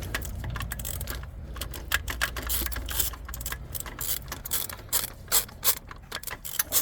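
3/8-inch hand ratchet clicking in short strokes as it backs out a starter mounting bolt with a 17 mm deep socket; the clicks come quicker and more evenly near the end.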